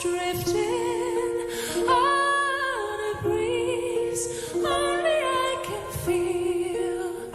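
A woman's solo voice singing long, held notes with vibrato over orchestral accompaniment.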